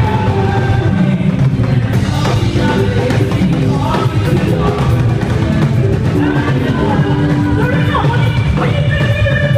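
Loud, steady music with singing over a drum kit.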